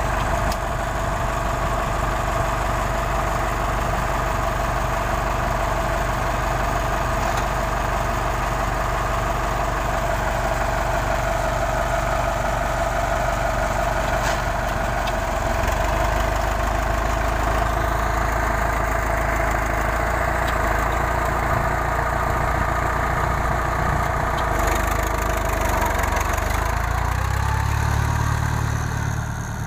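Engine of a small tracked rice carrier running steadily close by, a constant hum. In the last few seconds the sound shifts lower and drops as the vehicle pulls away across the field.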